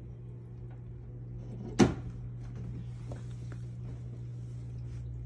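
One sharp knock a little under two seconds in, over the steady low hum of the reef aquarium's running equipment.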